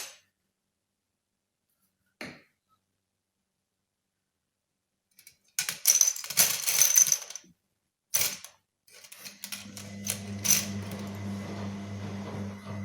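Small hard tools and parts clicking and clattering on the work surface in a couple of quick clusters as the watch is handled. About nine seconds in, a steady low hum sets in.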